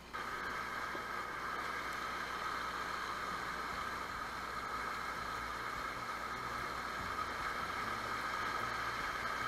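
Shallow mountain river rushing over boulders and stones, a steady rushing of water that begins abruptly a moment in.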